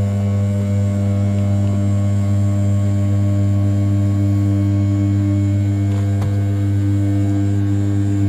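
Converted RZ420 desktop CNC mill's 500 W brushless spindle turning at 6000 rpm while rough-milling the outside profile of an A7075 aluminium block. A steady hum pitched near 100 Hz, with a faint click about six seconds in.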